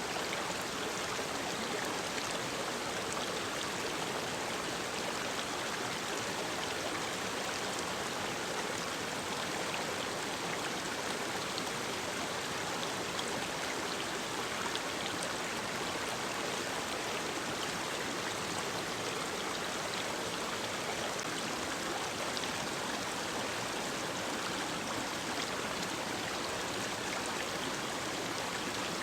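Mountain stream running over rocks: a steady rush of water with small splashes and trickles scattered through it.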